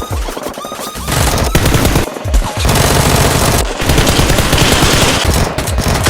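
Rapid automatic gunfire sound effects in dense bursts, with music underneath.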